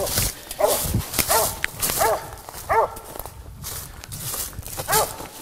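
Squirrel dog barking, about four barks in the first three seconds, then a pause and one more bark near the end. Footsteps crunch through dry leaf litter.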